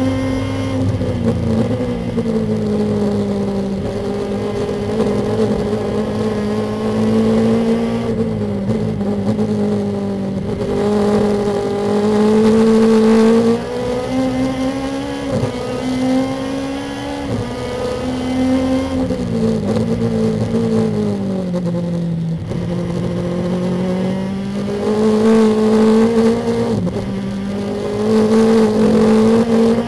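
Lexus IS-R race car's engine heard from inside the cockpit, its pitch rising and falling through the lap. Several times the pitch drops suddenly at a gear change, in between it climbs and sags as the car brakes and accelerates.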